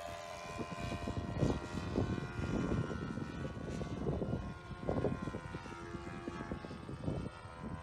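Sportster 60 RC model airplane's engine droning steadily with its propeller as the plane flies at height, with irregular low rumbles underneath.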